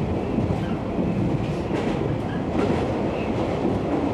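JR West 103 series electric train running at speed, heard from inside its driver's cab: a steady rumble of wheels on rail, with a few faint clacks about a second apart.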